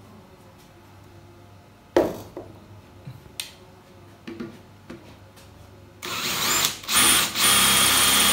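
A single knock about two seconds in and a few light clicks. Then, about six seconds in, a DeWalt cordless drill starts up and runs steadily with a high whine as its bit bores into a bengkirai hardwood board.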